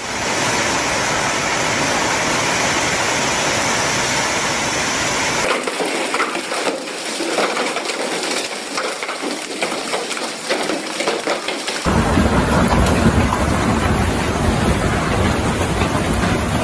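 Hailstorm: hail and heavy rain pouring down in a dense, steady hiss. From about five seconds in, individual hailstones clatter on pavement as a scatter of sharp clicks. About twelve seconds in it turns to a louder, deeper rush.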